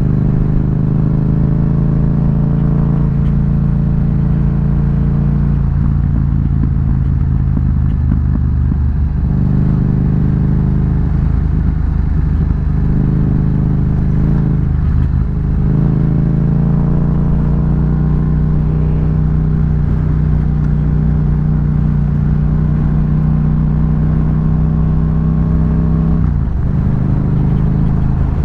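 Yamaha MT-07's parallel-twin engine, fitted with an Akrapovic exhaust, running under steady throttle while ridden, its note dipping briefly a few times as the throttle is eased and picked up again.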